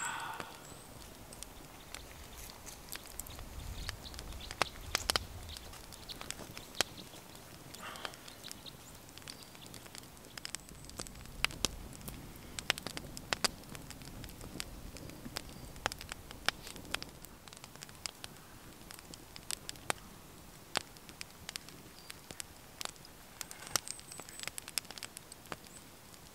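Small campfire of sticks crackling, with irregular sharp pops and snaps scattered throughout.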